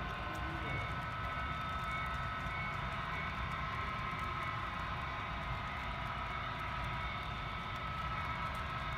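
HO scale model intermodal freight train running past on the layout, its cars rolling along the track with a steady, even drone.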